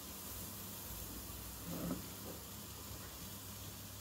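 Quiet room tone with a steady low hum, and one brief soft sound a little before two seconds in.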